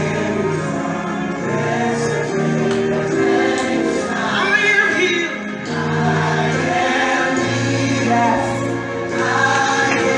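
Gospel worship song with a choir singing over a steady band accompaniment.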